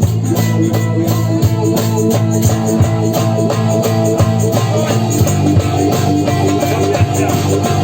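Psychedelic trance music from a live jam, with a steady driving beat under held tones and a plucked, guitar-like line.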